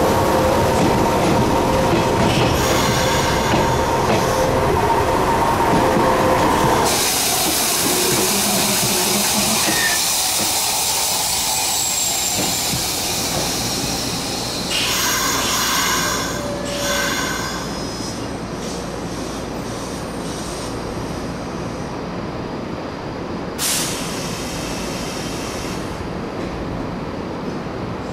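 Nishitetsu 5000 series electric train braking at a station with a steady high squeal for the first six seconds or so. A strong hiss of air follows, then two shorter hisses about halfway and near the end as it comes to rest.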